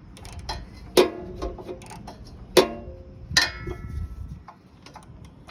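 Hand ratchet and socket clicking and clinking in short irregular bursts while turning a spark plug in a cramped spot on a generator engine, with three louder ringing metal clicks.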